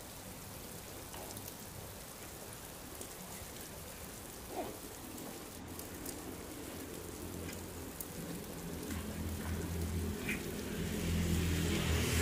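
Steady rain hissing on a wet asphalt road, with scattered drops. From about a third of the way in, a motorbike engine comes closer, its hum growing steadily louder toward the end.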